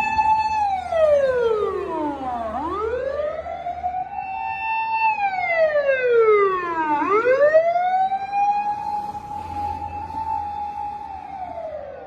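Emergency vehicle siren wailing. A held high tone slides down over about two seconds, then sweeps back up and holds. It does this twice and starts falling again near the end.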